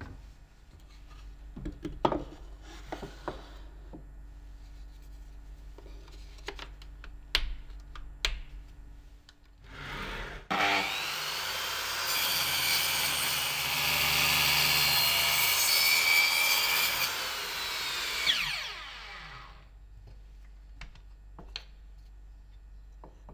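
A few clicks and knocks, then a Makita circular saw on a homemade vertical panel saw starts up and cuts down through plywood. It ends with the blade winding down in a falling whine.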